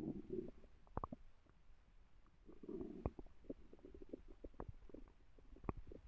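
Stomach growling: low bubbly gurgles at the start and again from about two and a half seconds in, with scattered short pops and clicks throughout.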